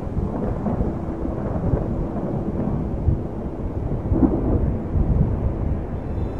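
Thunder rumbling low and continuously, a stormy soundtrack ambience.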